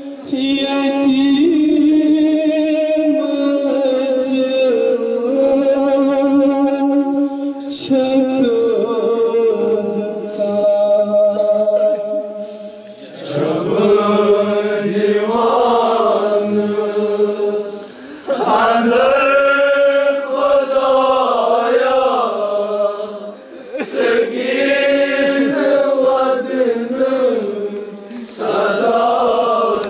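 Male voice chanting a noha, a Muharram lament for Imam Husain, in long sung phrases with short breaks between them.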